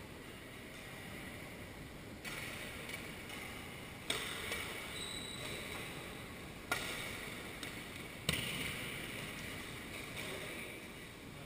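Badminton rackets striking a shuttlecock in a rally: five sharp smacks a second or two apart, each with a short echo, over a steady hiss of hall noise.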